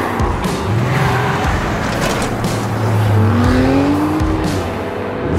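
Race car engine sounds revving, their pitch rising and falling several times, with tyre squeal, dubbed over diecast toy cars racing on a track.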